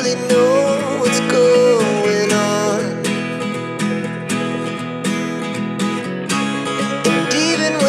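Background music: strummed acoustic guitar with a steady pulse, and a gliding melody line over it.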